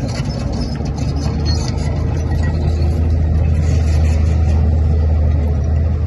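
Komatsu D41P bulldozer's diesel engine running with a steady low drone that grows a little louder, with light rattling in the first two seconds.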